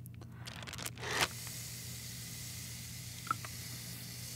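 A quick breath drawn in, then a steady hiss of breath blown out through the mouthpiece into a hydrogen breath-test collection bag, with one small click about three seconds in.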